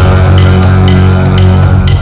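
Background music: a deep droning bass under a steady beat of about two strokes a second.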